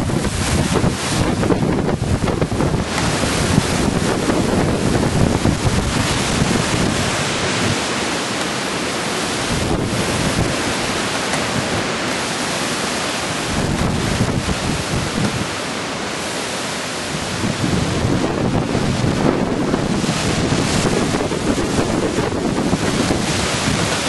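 Strong gusting storm wind with heavy wind buffeting on the microphone and trees rushing in the gusts. The low rumble of the buffeting eases twice in the middle, then builds again.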